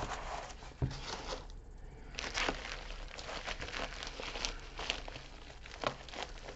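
Thin plastic wrapping crinkling and rustling as it is handled and picked open, with scattered crackles and a light knock about a second in.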